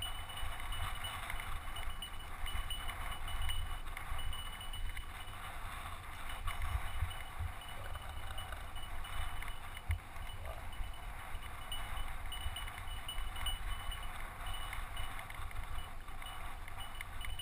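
Mountain bike rolling over a bumpy dirt singletrack, heard from a rider-mounted camera: steady rattling and clattering of the bike, with an uneven low rumble.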